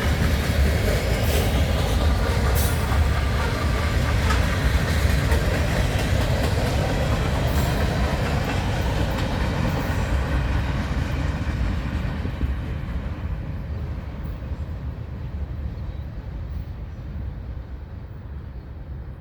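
Lake State Railway freight train rolling past, a heavy rumble of wheels on rail with a few sharp clicks over the rail joints. About twelve seconds in, the sound starts to fade steadily as the train moves away.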